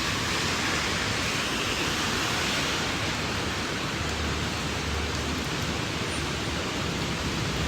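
Rain falling steadily, an even hiss, heavy enough to have just picked up from a light start.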